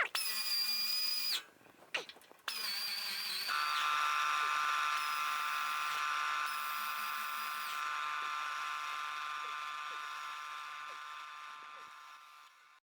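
Pneumatic air ratchet whirring as it runs bolts in, in two runs: a short one of about a second and a half, then after a brief pause a long run of about ten seconds that gradually fades away.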